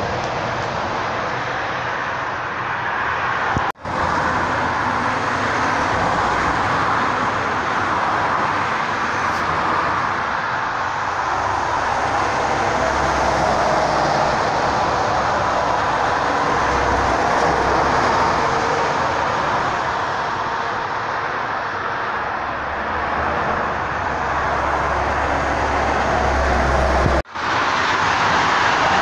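Highway traffic: heavy trucks and cars passing at speed, a continuous tyre-and-engine roar with deeper rumbles swelling and fading as big lorries go by. The sound cuts out briefly twice.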